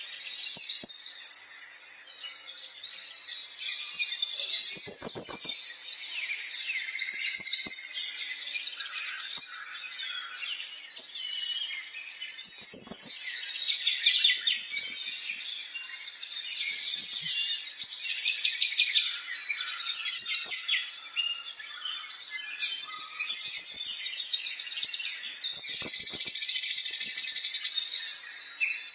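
Many small birds chirping and twittering at once, dense overlapping high calls with no break, with a few faint low knocks now and then.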